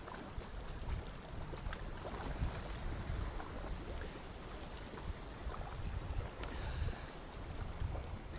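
Wind buffeting the microphone in an uneven low rumble over a steady wash of sea against rocks, with a few faint clicks.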